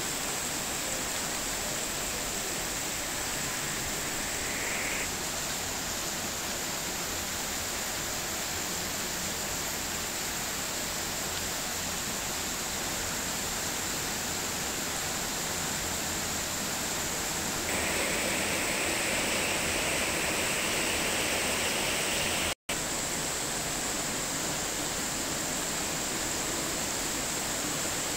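Heavy rain falling in a steady, dense hiss. It grows louder for a few seconds past the middle, then cuts out for a split second.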